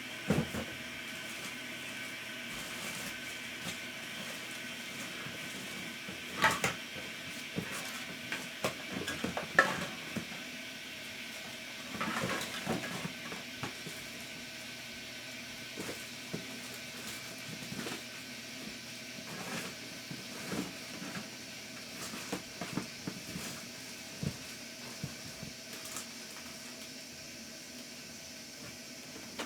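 Scattered clicks, knocks and clatter of small hard objects being handled and set down on a workbench, over a steady background hum. The loudest knocks come about half a second in, near the six- and ten-second marks, and in a short cluster a little later.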